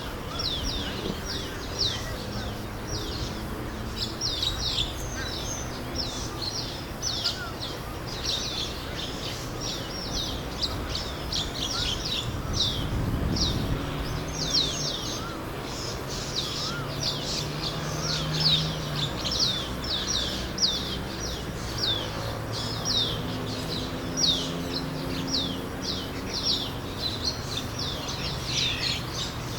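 A flock of birds chirping in a tree, with many short, high, downward-sweeping chirps overlapping without pause over a low background rumble.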